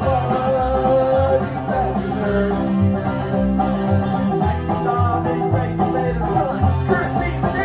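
Live banjo and upright double bass playing an instrumental passage together: plucked bass notes under the banjo's picked melody.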